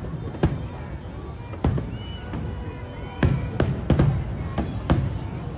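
Distant aerial firework shells bursting in sharp bangs: two in the first two seconds, then a quicker cluster of about six between three and five seconds in, over a steady low background rumble.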